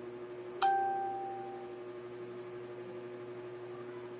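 A single bell-like ding from a smartphone notification chime, ringing out and fading over about a second, over a steady hum.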